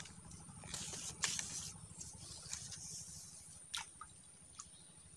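Faint rustling of dry reeds and swamp vegetation, with a few light ticks and a small plop into shallow still water.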